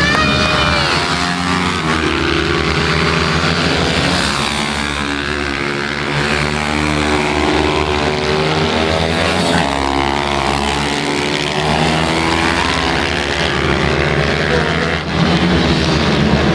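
Several pit bike engines racing, their revs rising and falling as the bikes accelerate and brake through the corners, with more than one engine note heard at once. The sound grows louder near the end.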